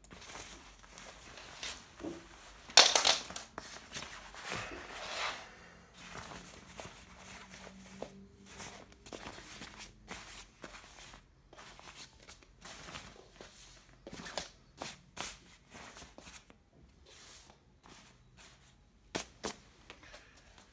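The smooth synthetic shell of a bomber jacket rustling and swishing as hands smooth, lift and fold it, in uneven bursts with short crackles. The loudest rustle comes about three seconds in.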